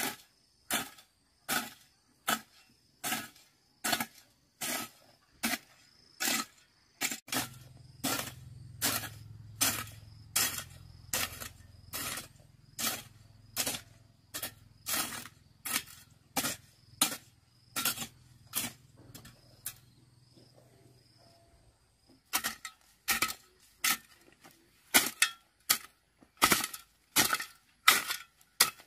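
Steady rhythmic knocks, about two sharp blows a second, as of a hand tool striking repeatedly, with a brief lull then louder strikes over the last several seconds. A low steady hum sounds under the knocks through the middle.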